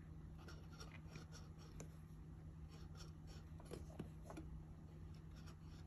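Faint marker-on-metal writing sounds: a Sharpie fine-point tip drawing on a cut tuna-can lid, with scattered light ticks as the tip meets the metal.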